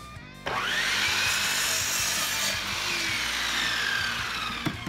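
Sliding miter saw starting up about half a second in, its motor whine rising quickly to speed, then cutting through a wooden board for about four seconds, the whine sinking slowly in pitch. It dies away shortly before the end.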